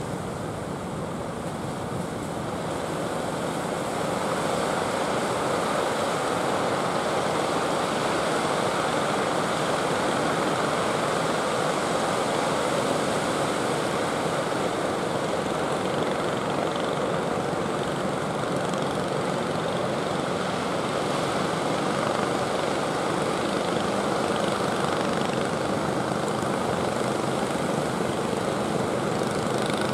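Steady drone of fishing boats' engines mixed with the rush of breaking surf, growing a little louder over the first few seconds.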